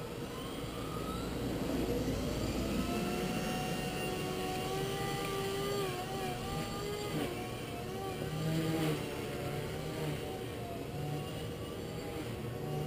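Blade 130X electric micro helicopter spooling up: the motor and rotor whine rises in pitch over the first couple of seconds, then holds a steady whine that wavers up and down with the throttle as it flies.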